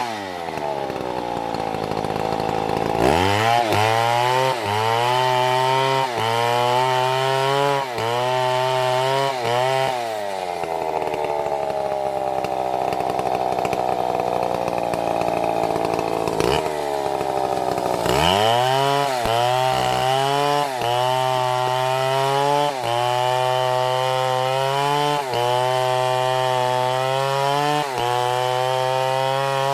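Chainsaw engine running hard. Its pitch sinks over a few seconds twice, as the chain bogs down in the wood, and between those it revs with short dips about every one and a half to two seconds.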